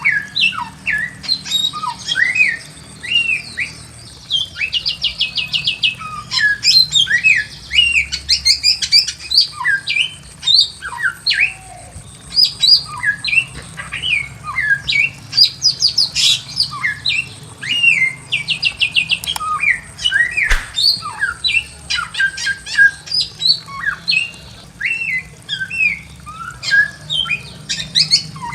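Bare-throated whistler (samyong) singing without pause: a fast, varied run of short slurred whistled notes, broken several times by rapid rattling trills.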